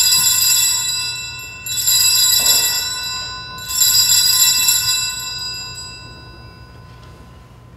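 Altar bells (sanctus bells) rung three times, each ring fading slowly, the third dying away near the end. They mark the elevation of the host just after the words of consecration at Mass.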